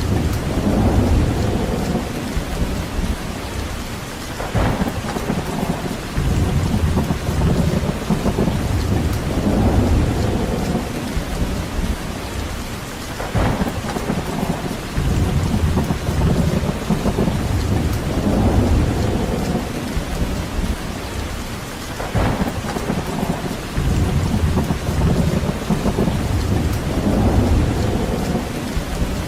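Steady rain with deep rumbling swells every few seconds.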